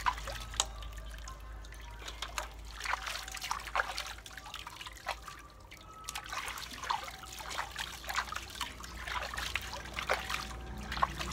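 Soapy water splashing and trickling in a stainless-steel basin as hands scrub a baby monkey, with many irregular small splashes throughout.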